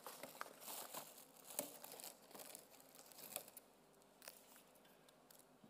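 Paper being handled, faint crinkling and rustling with a few light knocks, dying down after about three and a half seconds.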